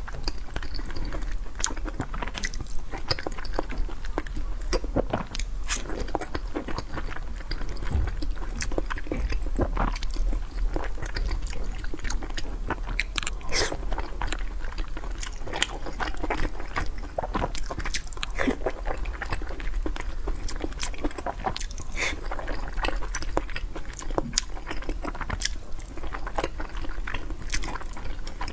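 A person chewing and biting red-braised pork belly close to the microphone, with a dense, irregular run of small wet mouth clicks and smacks. A steady low hum lies underneath.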